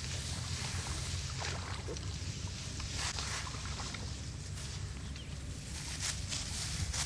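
A small engine running steadily at a constant speed, with scattered rustling and light ticks over it.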